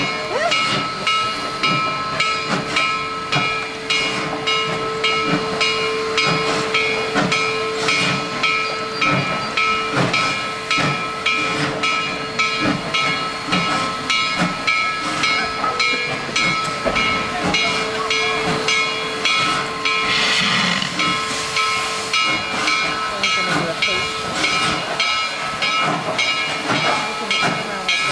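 Steam locomotive No. 734 working, with a steady loud hiss of steam and several thin whistling tones over it, and a regular beat of about one and a half strokes a second throughout.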